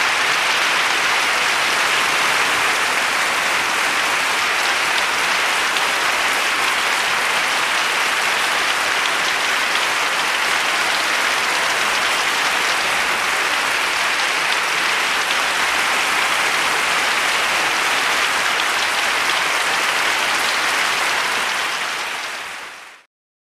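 A steady, even rushing noise, like applause or static hiss, holding the same level throughout and fading out just before the end.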